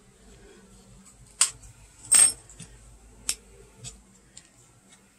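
Small lipstick box being opened by hand: a few light clicks and taps of packaging, the loudest about two seconds in.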